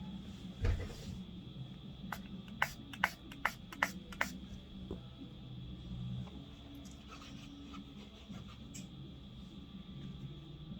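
A soft thump, then a quick run of about seven sharp clicks or taps over about two seconds, against a faint steady high-pitched hum.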